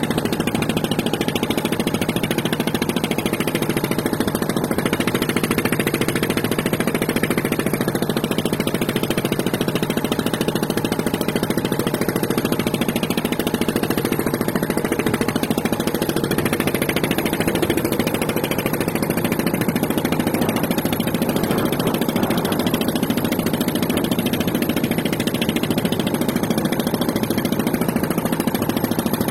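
An engine running steadily at an even pitch and level.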